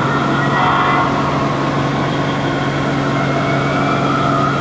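HO scale model diesel locomotive's sound system playing a steady diesel engine drone with a high whine above it.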